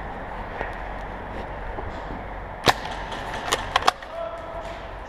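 A single sharp shot from an HPA-converted King Arms R93 airsoft sniper rifle, followed within about a second by three quick, smaller clicks.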